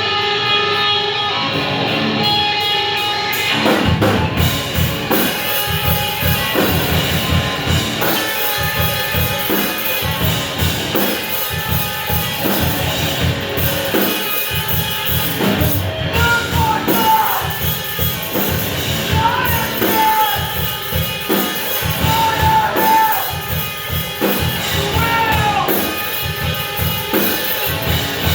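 Live rock band playing amplified guitar with a drum kit; sustained guitar chords ring at first, and the drums come in about four seconds in, keeping a steady beat.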